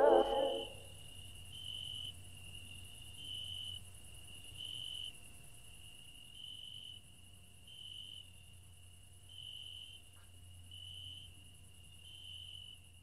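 A cricket chirping: a steady high trill that swells about every second and a half, over a faint low hum.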